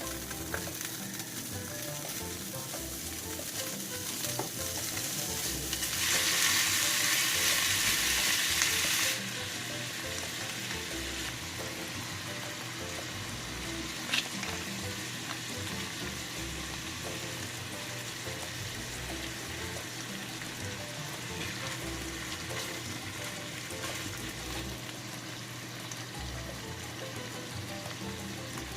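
Food frying in a pan, a steady sizzle with stirring. About six seconds in the sizzle jumps much louder for about three seconds, then drops back abruptly. One sharp click midway. Faint background music underneath.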